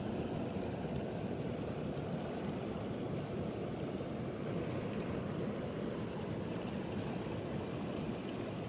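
Shallow mountain stream water flowing and splashing over rocks, a steady rushing noise.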